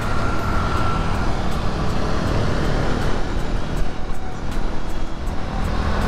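Steady wind rush and road rumble from a KTM Duke motorcycle riding at speed.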